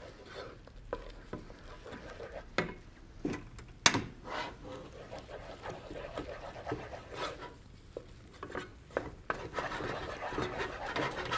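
A spoon stirring and scraping thick choux pastry dough in a pot, with a few knocks against the pot, the sharpest about four seconds in. The flour-and-milk dough is being worked and dried over the heat.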